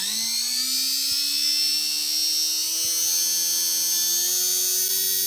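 Small electric motor of a micro RC model airplane spinning its propeller: a steady high-pitched whine that starts abruptly and creeps slightly higher in pitch, a test run of the newly fitted spinner.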